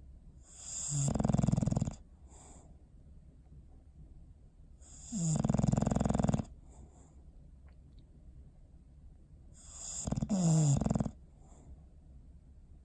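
English bulldog snoring in its sleep: three loud snores, each about a second and a half long, coming every four to five seconds.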